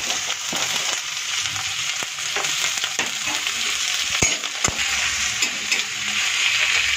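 Chopped onions and green chilli sizzling as they fry in hot mustard oil in a steel kadhai, a steady hiss. About four seconds in, two sharp clicks of a spatula against the pan, then stirring.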